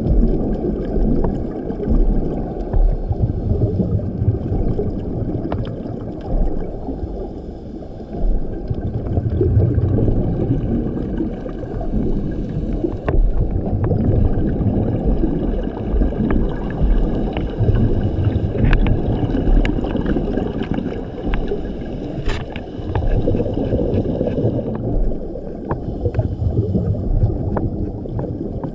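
Scuba diver breathing through a regulator underwater: a steady muffled rush with a bubbling rumble that swells every few seconds as the breaths go out. Scattered sharp clicks sound over it.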